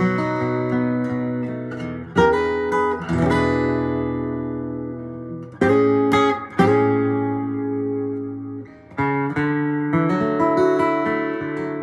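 Solo steel-string acoustic guitar played fingerstyle with a capo on the neck, an instrumental passage of picked notes and a few harder-struck chords, each left to ring out.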